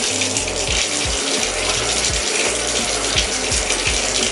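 Shower running: a steady spray of water hissing in a small tiled bathroom.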